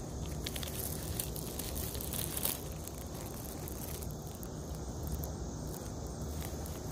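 Outdoor lawn ambience: a steady low rumble with a thin, steady high drone over it, and a few faint rustles and clicks in the first couple of seconds as the dog shifts on the grass.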